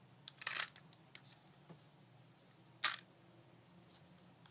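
Light plastic clicks from a homemade Lego-and-comb hidden blade being worked with flicks of the wrist: a short cluster of clicks about half a second in, a few faint ticks, then one sharp click near three seconds in.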